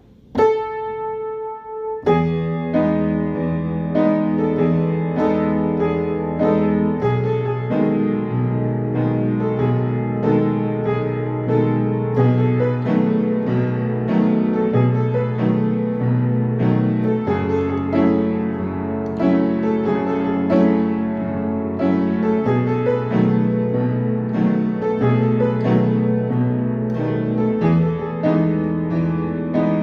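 Piano playing: a single note struck about half a second in and left to ring, then a continuous run of chords over a bass line that shifts every second or two.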